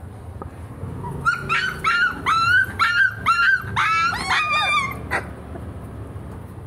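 A small puppy yapping up at a much larger dog: a quick run of about eight high-pitched yaps, ending in a longer wavering cry, followed by a single sharp click.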